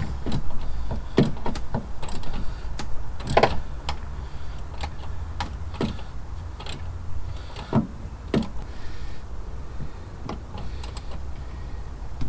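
Ratchet working a deep bolt extractor socket on a rounded bolt in short strokes: scattered sharp clicks and light metal knocks, one or two a second, over a steady low hum.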